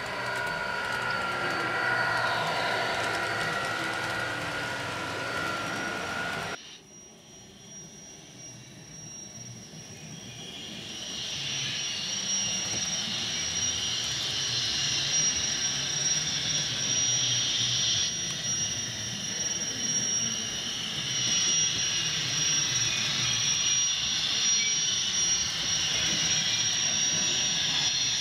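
HO scale model trains running on the layout: a steady motor whine with wheel noise on the track, which cuts off abruptly about six seconds in. A quieter hiss follows and builds over a few seconds into a steady high whirring as a freight train led by diesel units comes closer.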